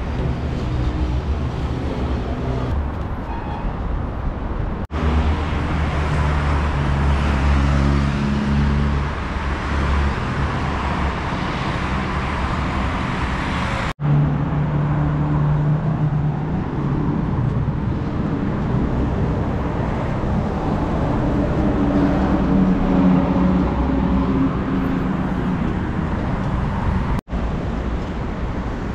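Steady road traffic: cars driving past with a low engine hum. The sound drops out for an instant three times.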